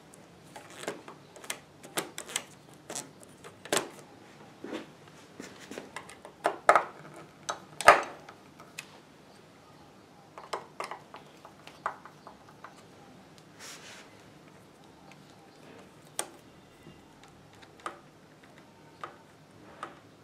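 Irregular metallic clicks, taps and clinks as a screwdriver and hands work on an industrial sewing machine's bobbin winder, setting it in position. The knocks come thick in the first half, with the loudest about eight seconds in, then thin out to scattered light taps.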